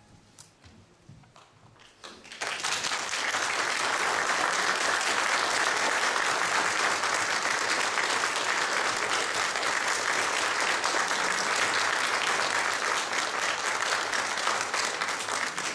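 Audience applause after a choir's song: a short hush, then steady clapping starts about two seconds in and carries on, thinning slightly near the end.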